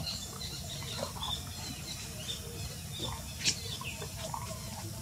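Outdoor ambience with a steady low background hiss and scattered short, high animal chirps, the sharpest about three and a half seconds in.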